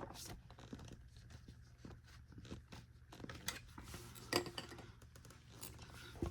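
Faint clicks, taps and rustles of the plastic parts of a Bissell Cleanview upright vacuum being handled and fitted together, with a few sharper clicks about three and a half and four and a half seconds in.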